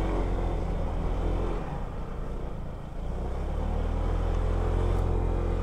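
Motor scooter engine running steadily at low speed under load on a steep climb. It eases off about a second and a half in, then picks up again about three seconds in.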